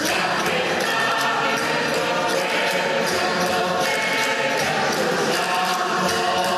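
A mixed choir of men and women singing a Cantabrian folk song, with hand tambourines (panderetas) beating a steady rhythm under the voices.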